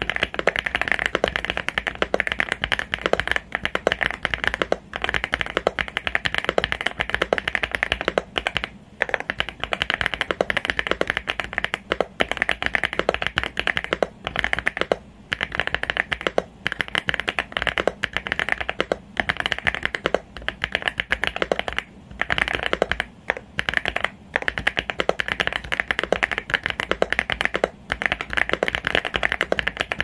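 Fast, continuous typing on a mechanical keyboard fitted with Mintcaps BCP switches: a dense stream of key clacks with a few brief pauses.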